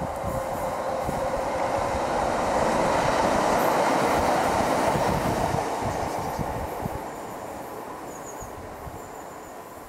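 Diesel multiple-unit passenger train passing close by on the rails, its engine and wheel noise swelling to a peak a few seconds in, then fading as it moves away.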